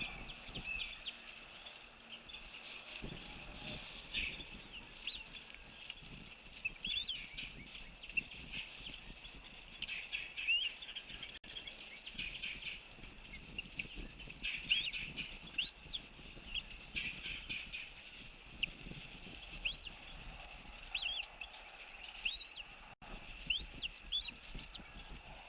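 Outdoor chorus of wild birds: a dense, continuous chatter of chirps, with many short whistled calls that rise and fall scattered through it.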